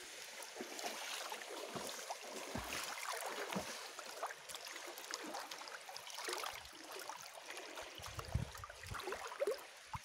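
Sea water lapping and sloshing right against the microphone at the surface, with many small splashes and gurgles and a few deeper sloshes near the end.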